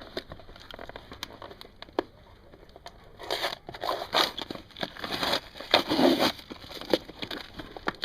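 Hard drive's packaging being handled: a few light clicks and taps, then a stretch of dense crinkling and crackling from about three seconds in to past six seconds.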